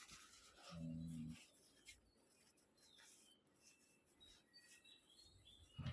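Near silence, with a short low hum about a second in and a few faint, thin high chirps in the second half.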